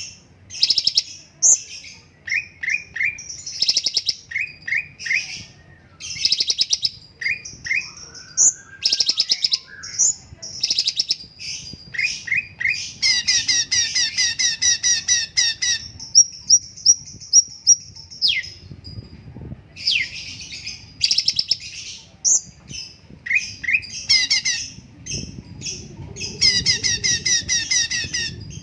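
Cucak cungkok singing a fast, busy song. Bursts of rapid chattering trills alternate with short falling whistled notes. Longer runs of rapid rattling come in the middle and again near the end, and a string of quick high whistled notes follows the middle run.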